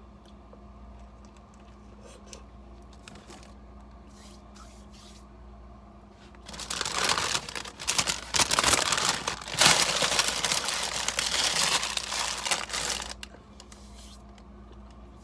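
Sandwich wrapper crinkling and rustling as it is handled, a loud burst of irregular crackles lasting about six seconds and starting about halfway through, over a steady low hum.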